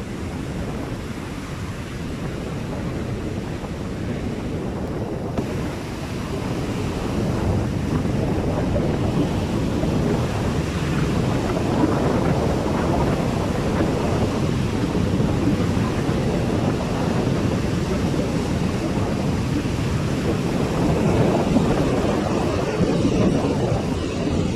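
Sea surf breaking on a beach, heard as a steady rush of noise mixed with wind buffeting the microphone, swelling louder about six seconds in.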